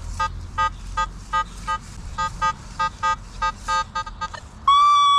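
Nokta Makro Legend metal detector giving short repeated target beeps, about three a second, then a longer, louder steady tone near the end. The signal is a low-conductive target just above the iron range, ID 11 or 12, which the Legend's manual gives as foil.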